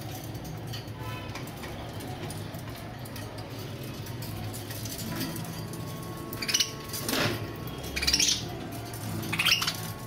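Caged budgerigars giving four short, sharp chirps in the second half, over a steady low hum.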